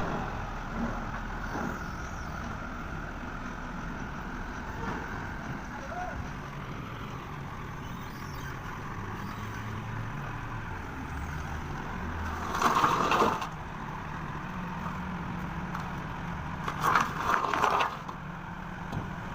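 Heavy machine's engine running steadily while it lifts a long steel plate, with two loud, rough bursts of sound, about thirteen and seventeen seconds in.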